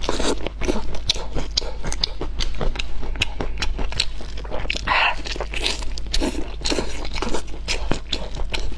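Close-miked chewing and biting of home-braised pork ribs: a rapid, continuous run of mouth clicks and smacks.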